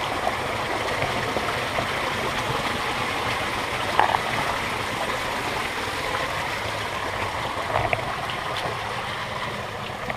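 A small woodland waterfall pouring steadily into a pool, a continuous rush of falling water. Two short louder sounds stand out, about four and eight seconds in.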